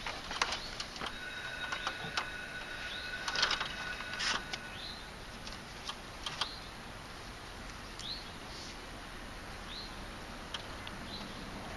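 Fingers pressing small magnets onto the outside of a motorhome's side window glass, giving scattered light taps and clicks, the loudest a few seconds in. Birds chirp with short rising calls several times.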